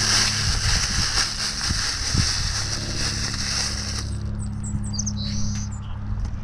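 A steady hiss that stops abruptly about four seconds in, over a low steady hum; a few short high chirps, like a small bird's, follow about a second later.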